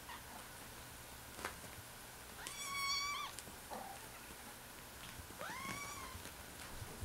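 Exotic Shorthair kitten meowing twice in a high pitch: a longer, louder meow about two and a half seconds in, then a shorter one that rises at its start near the end. A faint tap from the scuffle sounds about a second and a half in.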